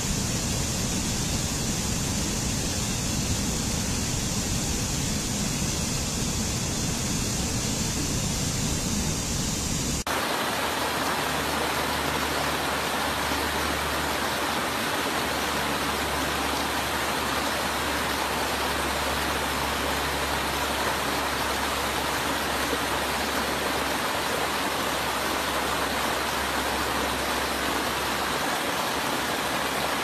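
Rushing water of a rocky stream cascading over boulders and small falls, a steady rush. About ten seconds in it changes abruptly to a different, brighter rush of water.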